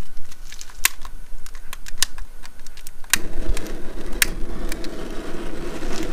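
Sharp, separate clicks of a hand-held clicker lighter being sparked at a gas barbecue burner, then from about three seconds a steady rushing noise as the gas catches and the burner burns.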